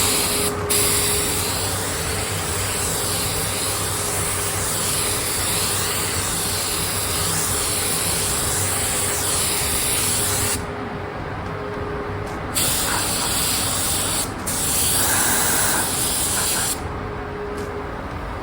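Paint or primer being sprayed onto a motorcycle exhaust canister: a loud, steady hiss in long passes that stops and restarts a few times, the last pass ending shortly before the end.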